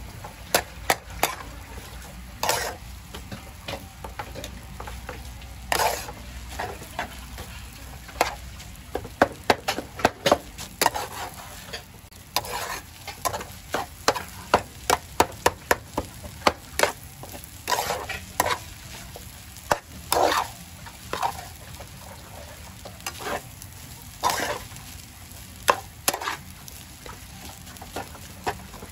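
A metal ladle scrapes and clinks against a metal wok in repeated, irregular strokes as fried rice is stir-fried. A steady low sizzle of the frying rice runs underneath.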